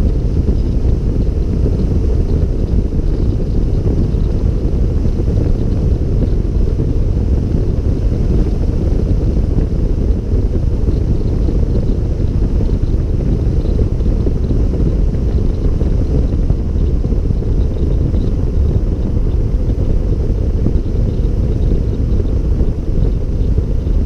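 Wind noise on the camera microphone of a Suzuki DR650 dual-sport motorcycle riding at road speed: a steady low rumble, with the bike's running mixed in.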